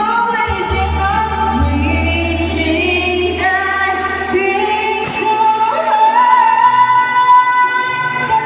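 A teenage girl singing solo into a microphone over instrumental backing. About six seconds in she holds one long note, the loudest part.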